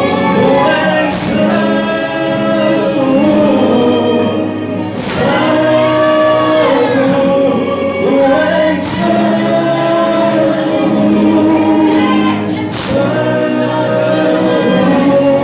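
Gospel song with choir-style singing holding long, gliding notes over the accompaniment, with a bright hit about every four seconds.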